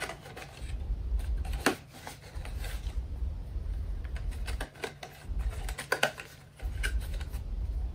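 Small cardboard toy box being handled and opened: scattered clicks, scrapes and rustles of the cardboard flaps and packaging.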